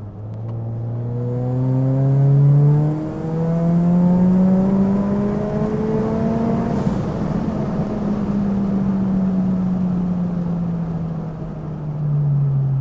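Turbocharged Scion FR-S's 2.0-litre flat-four engine accelerating, its pitch rising for about seven seconds with a break about three seconds in. After that the pitch slowly falls as it eases off.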